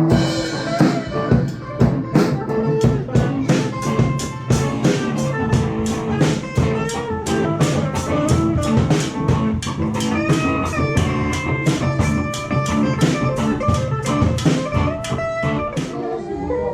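Background music with guitar and a drum kit playing a steady beat.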